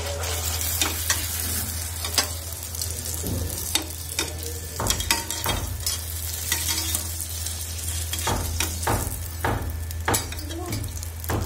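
Phuchka puris deep-frying in hot oil, the oil sizzling steadily. Through it come repeated short clicks and scrapes of a perforated metal slotted spoon and a wire spider strainer against the pan as the puris are pressed to puff and lifted out.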